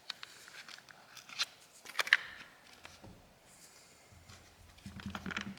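Plastic back-cover clips of a smartphone clicking and snapping loose as a pry tool is worked around the edge: a few scattered sharp clicks, the loudest about a second and a half and two seconds in.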